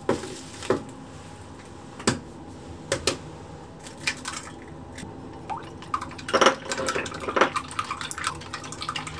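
Kitchen sounds of water dripping and splashing, with scattered short clicks and knocks and a busy cluster of them about two-thirds of the way through.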